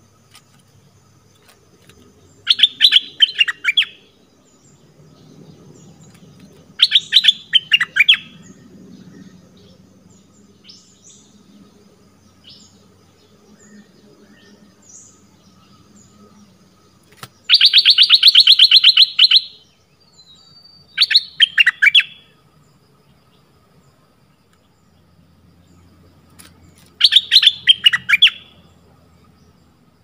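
A bulbul calling in five loud bursts of rapid repeated notes. The third burst, about halfway through, is longer: an even, fast trill of about two seconds.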